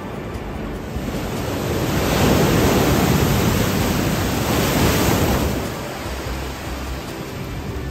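Ocean surf washing onto a beach: a steady rush of water that swells about two seconds in and falls back about six seconds in, with some wind on the microphone.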